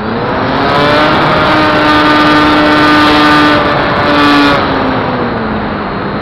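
Electric motor and propeller of an RC airplane heard from its onboard camera, spinning up in the first second to a steady high whine under throttle. It dips and comes back briefly about three and a half seconds in, then winds down to a lower whine as the throttle is eased back.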